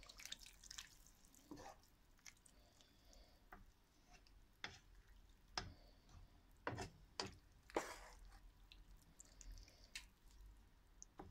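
Wooden spoon stirring spinach rice in a pot, giving faint, irregular knocks and clicks against the pot, about ten over the stretch.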